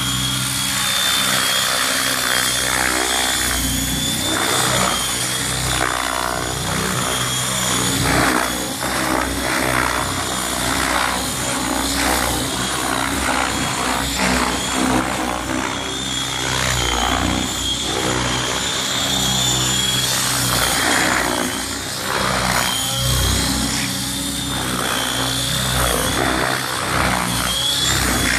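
700-size radio-controlled helicopter flying, its rotors running with a steady high whine. The rotor sound swells and dips as it manoeuvres.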